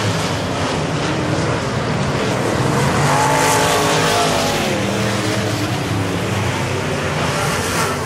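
Dirt-track modified race car engine running hard around the oval. Its pitch rises and falls once, about three to four seconds in, as the car sweeps past.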